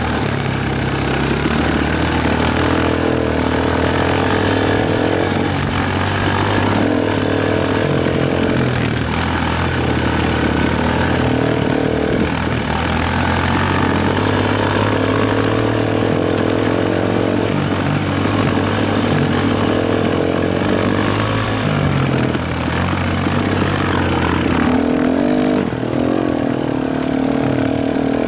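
Dirt bike engine running continuously under way, its pitch and loudness shifting up and down now and then.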